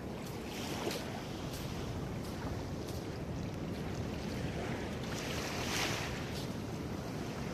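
Wind rumbling on the microphone over the gentle wash of small waves at the water's edge, with a louder hissing swell about five to six seconds in.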